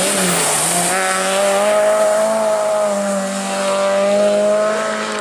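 Rally car engine held at high revs as it drives flat out on a loose gravel stage, its pitch rising and dipping slightly.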